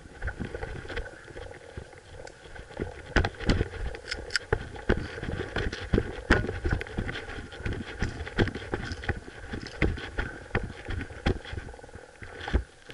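Footsteps of a person moving quickly over grass, irregular thumps at about two a second.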